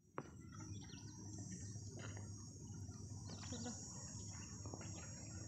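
Faint open-air ambience: a steady high insect buzz with a few short bird chirps over a low rumble of wind.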